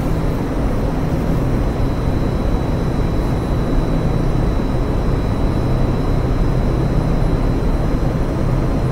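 Steady, loud mechanical rumble with a low hum underneath, unchanging throughout.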